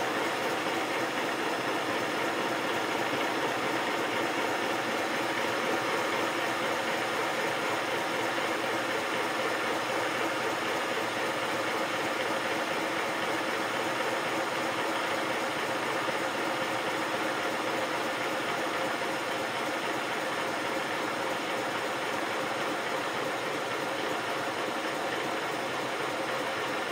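5-inch gauge GWR 14XX live-steam model locomotive running steadily on a bench rolling road, its wheels turning on the rollers; it runs very smoothly, with all its wheel flanges bearing on the rollers.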